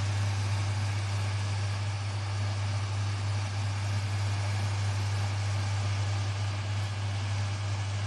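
A steady low hum with an even hiss over it, unchanging throughout.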